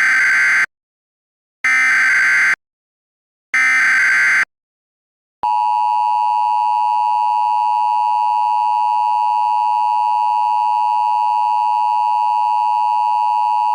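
Emergency Alert System SAME header: three short bursts of digital data tones, each just under a second with silence between, then the steady two-tone EAS attention signal starting about five seconds in.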